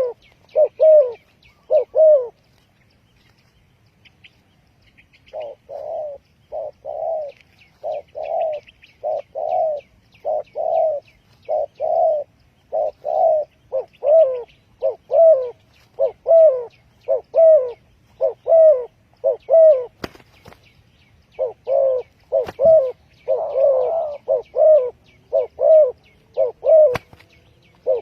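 Spotted dove cooing: a long run of low, rounded coos at about two a second, stopping for about three seconds near the start and then resuming. Faint high chirps of small birds run above the coos.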